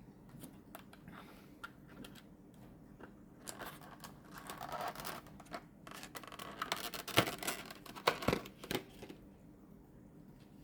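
Hands handling small laptop parts: scattered light clicks and scrapes, a stretch of rustling about four seconds in, then a busier run of clicks and scrapes with a sharp click about seven seconds in.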